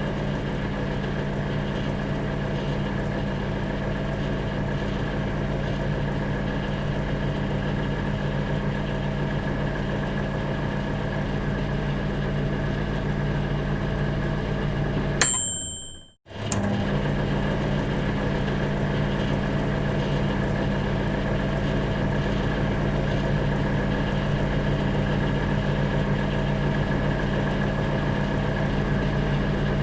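Microwave oven running with a steady hum. About fifteen seconds in, its bell dings once as the cooking cycle ends, then there is about a second of silence before the oven starts running again.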